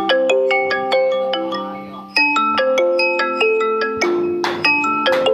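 Background music: a quick, bright melody on a marimba-like mallet instrument, each struck note ringing and fading.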